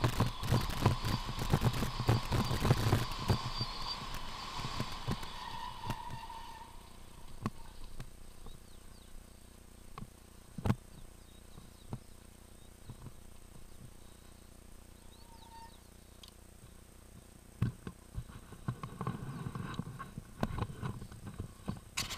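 Mountain bike rattling and clattering hard over a rough dirt trail for about the first six seconds, with a thin steady whine under it. Then it goes much quieter, with only scattered ticks and a few sharp knocks as it rolls slowly over grass, and a short burst of rattling and handling noise near the end.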